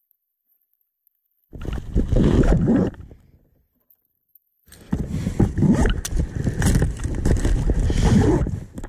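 Close rubbing and bumping of a kayaker shifting his weight and getting up in a plastic sit-inside kayak, heard in two loud stretches, the first about a second and a half in and the second from about five seconds in, with many short knocks.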